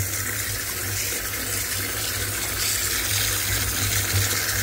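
Tap water running steadily into a bathtub of standing water, a continuous rush with a low hum underneath.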